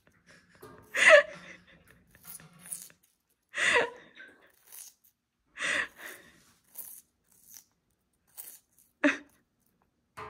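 Sulphur-crested cockatoo biting into watermelon rind with its beak: a few sharp crunches a couple of seconds apart, with softer nibbling between.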